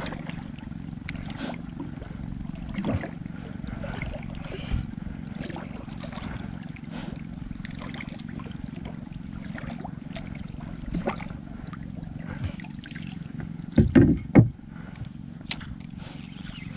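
Sounds aboard a small fishing boat: a steady low rumble with scattered light clicks and knocks, and a short cluster of louder knocks about 14 seconds in.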